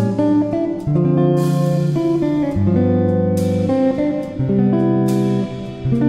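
Instrumental background music led by guitar, its chords changing about once a second, with a bright splash on the beat roughly every two seconds.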